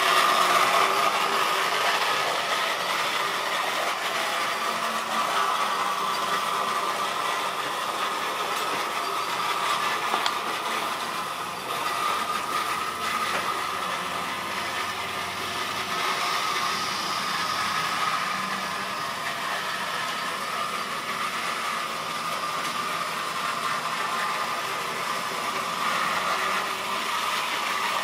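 Model railway locomotives running on the layout, their small electric motors whirring steadily as the trains and wagons roll over the track, with occasional clicks.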